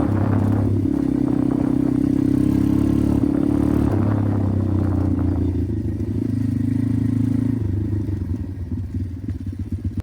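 Pit bike engine running under way at fairly steady revs, its pitch shifting in a few steps. In the last two seconds or so it drops to lower, uneven running.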